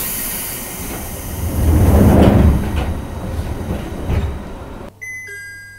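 Commuter train's sliding doors closing, with a heavy thud about two seconds in as the door leaves shut. Near the end, after a sudden change in background, a two-note descending chime begins.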